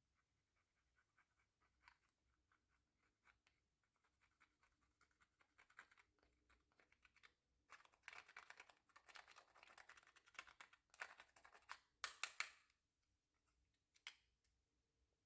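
Slime being worked by hand, giving faint, rapid sticky clicks and crackles that grow busier and louder about eight seconds in, then die down near the end.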